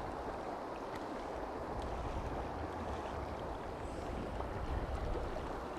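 Steady rushing of a flowing stream, an even wash of water noise that holds at the same level throughout.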